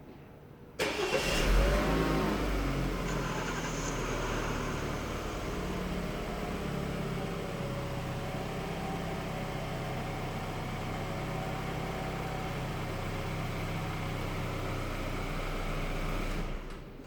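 BMW 5 Series (F10) engine being remote-started: it catches about a second in with a brief rev flare, settles into a steady idle, and stops shortly before the end.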